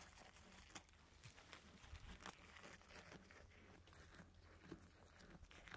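Faint crunching and tearing of a goat biting and chewing leaves off a branch: scattered soft crackles and clicks.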